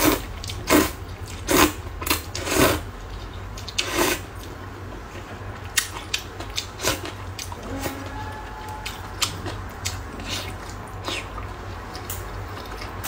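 A person slurping rice noodles in broth, with five loud slurps in the first four seconds, then quieter chewing and lip smacks over a steady low hum.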